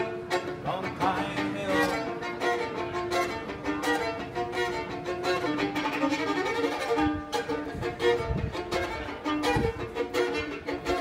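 Solo fiddle bowing an instrumental break between sung lines of a song, a melody of quickly changing notes. A few low thuds come in the second half.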